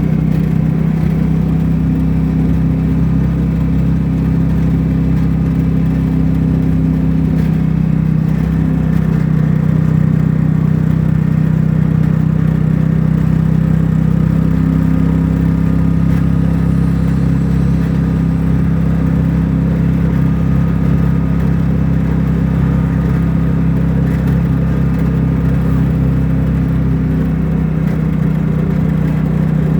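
A vehicle's engine droning steadily as a loud, low hum. Its pitch shifts slightly a few times, about eight, fourteen and twenty-seven seconds in.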